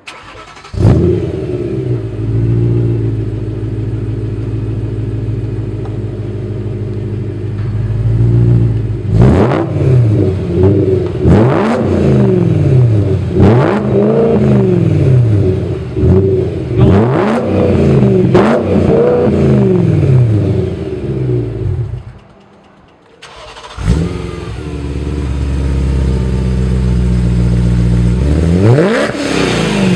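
BMW E92 M3's 4.0-litre V8 through a Revinora race exhaust, idling with a couple of small blips, then revved quickly over and over, each rev rising and falling. After a cut, a second M3, supercharged by ESS and fitted with a Dinan midpipe and Akrapovic rear section, idles and is revved near the end.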